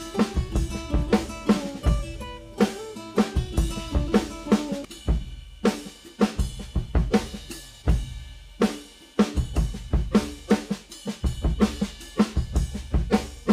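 Background music with a steady drum beat and a short repeating melody.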